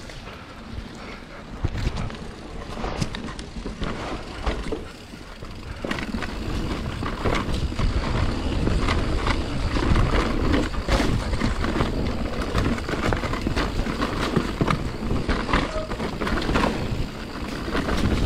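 Santa Cruz Nomad mountain bike descending a wet dirt singletrack: tyres rolling over mud and roots, with a steady run of knocks and rattles from the bike. It gets louder about six seconds in.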